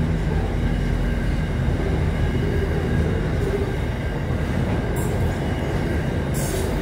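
Double-stacked container freight train's wagons rolling past, a steady rumble of wheels on rails. A low steady hum fades out about a second in, and two short high hisses come near the end.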